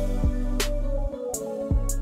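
Background instrumental music with a steady drum beat.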